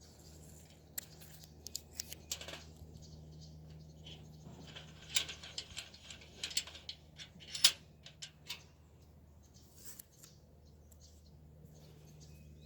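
Irregular small clicks and short scrapes of hands working on a metal C-clamp, over a steady low hum.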